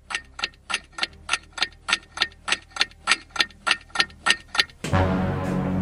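Clock ticking, fast and even at about three ticks a second, a waiting sound effect. About five seconds in the ticking stops and sustained background music begins.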